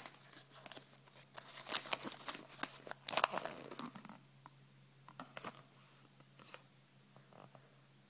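Crinkling and rustling of a chocolate surprise egg's foil wrapper and folded paper leaflet being handled and unfolded, densest in the first half, then a few light crackles.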